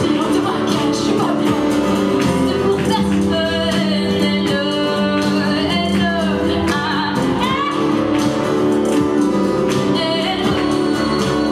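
A woman singing a song, accompanying herself on a strummed acoustic guitar.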